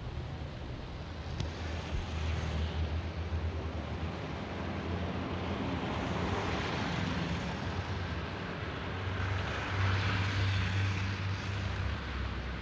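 Motor traffic: a steady low engine rumble, with the noise of passing vehicles swelling about six and again about ten seconds in.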